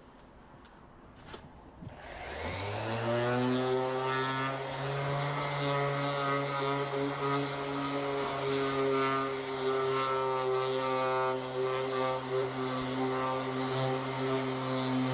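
An electric motor starts about two seconds in, spins up quickly and then runs steadily at a constant pitch.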